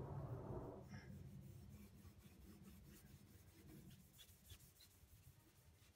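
Faint rubbing of a cloth buffing a steel bicycle seat post with metal polish, clearest in the first second, then fading to a few light ticks.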